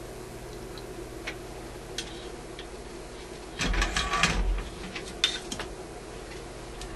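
Soldering iron and tools handled at a workbench: a few light clicks, then a brief clattering rattle about halfway through and a couple of sharp clicks after it, over a steady low hum.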